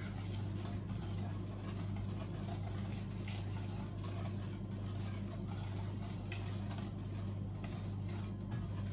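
Steady low electrical hum, with a few faint taps and scrapes from a wire whisk gently stirring a batter in a stainless steel bowl.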